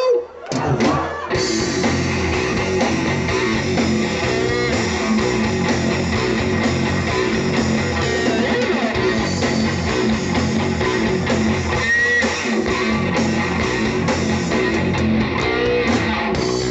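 Live rock band playing electric guitars over a drum kit; after a short break the full band comes back in about a second in and plays on steadily.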